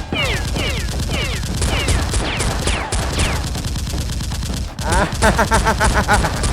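Rapid gunfire sound effects: repeated shots, each with a falling whizzing tone. Near the end comes a faster burst of evenly pulsing fire, like a machine gun.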